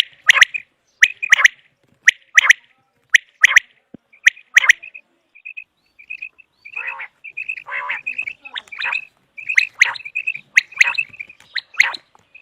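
Common quail calling over and over: sharp, clipped notes in quick groups, with softer short notes between them. The calling thins out for a second or so around the middle, then resumes more densely.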